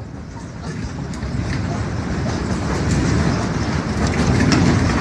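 Deep rumble of an earthquake, growing steadily louder, with rattling and clicking over it toward the end.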